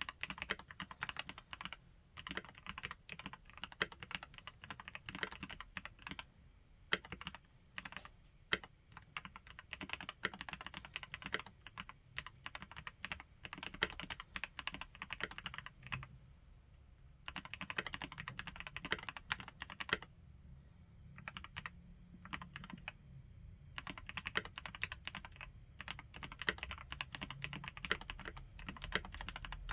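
Typing on an Epomaker Brick 87 tenkeyless mechanical keyboard with Gateron Pro Yellow linear switches: fast, continuous runs of keystrokes that thin out briefly a few times.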